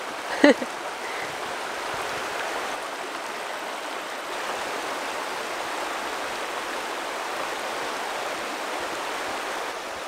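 Water of a shallow, rocky forest river rushing steadily over stones in a small rapid, an even, unbroken rush.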